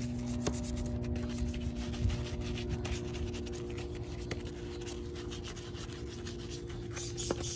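Wheel detailing brush scrubbing a soapy alloy wheel between the spokes and around the lug nuts, a quick run of bristle rubbing strokes, over a steady low hum.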